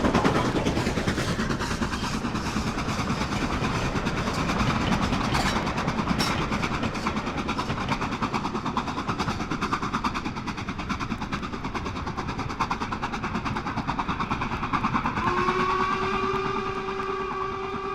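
A train running past on the rails: steady wheel-and-rail rumble. About fifteen seconds in, a steady pitched tone sets in over it.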